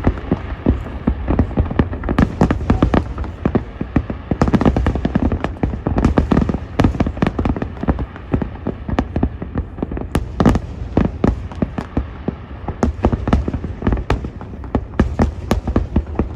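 Fireworks display: a dense, rapid barrage of sharp bangs and crackles, several a second, over a continuous low rumble.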